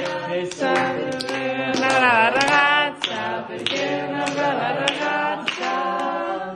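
Several voices singing together without instruments, on long held notes that waver in places, with hand claps keeping time through the second half.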